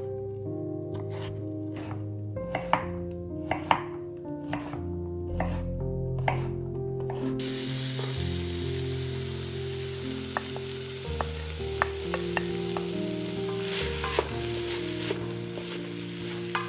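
A chef's knife chopping parsley root on a wooden cutting board in a run of sharp strikes. About halfway through, a steady sizzle starts suddenly: diced root vegetables frying in a pot, with light knocks of a wooden spoon stirring them.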